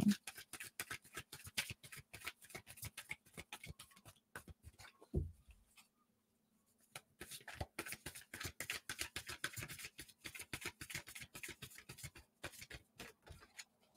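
An oracle card deck being shuffled by hand: a fast run of soft card-on-card flicks and slaps, pausing for about a second around six seconds in. One soft thump about five seconds in.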